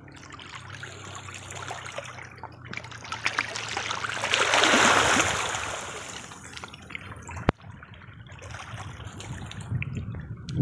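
Shallow seawater lapping and trickling at the shoreline, swelling into a louder wash about halfway through. A single sharp click comes a little later.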